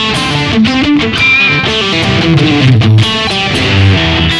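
Squier Stratocaster Affinity electric guitar played through a Yamaha THR10X amplifier on a thick, heavy distortion preset, playing a riff that moves between low notes and higher chords.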